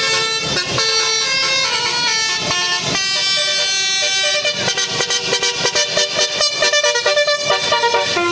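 Bus telolet musical air horn playing a tune of shifting notes. About four and a half seconds in it switches to a fast stuttering run of short, clipped notes.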